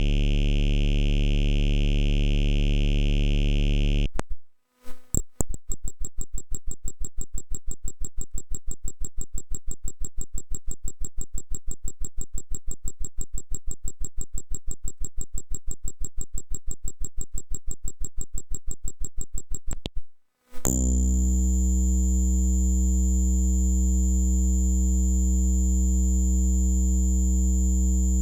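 Electronic synthesizer test sounds in three parts, each cut off by a short gap. First a steady buzzing drone, then from about four seconds in a rapid even pulsing of about five pulses a second, and from about twenty seconds in another steady drone with a deep low tone and a high whistle on top.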